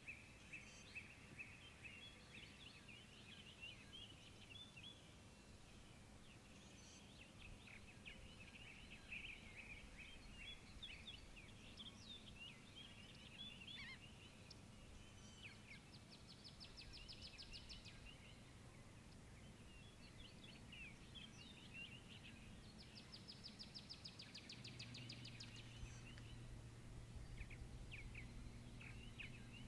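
Faint birdsong: several small birds chirping and twittering, with two rapid trills of quickly repeated notes. A faint steady low hum comes in near the end.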